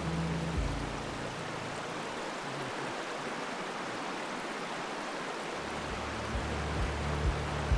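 River water rushing steadily over rocks, an even hiss of moving water. Background music fades out about half a second in and comes back in quietly in the last couple of seconds.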